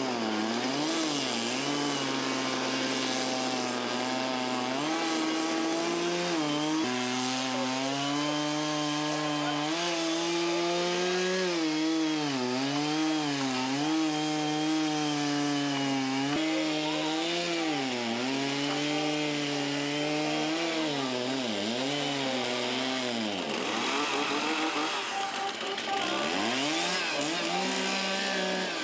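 Chainsaws cutting into wood, their engines revving up and down again and again as the carvers shape the blocks.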